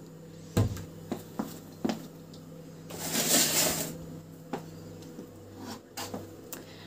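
A kitchen cupboard door is shut with a thump about half a second in, followed by light clicks and knocks. About three seconds in there is a brief rustling rush. A steady low hum runs underneath.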